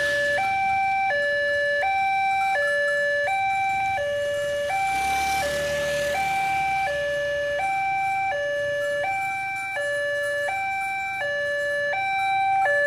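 Indonesian railway level-crossing warning alarm sounding its two-tone signal, alternating between a lower and a higher note about every 0.7 s. It is the warning of an approaching train while the crossing barriers come down.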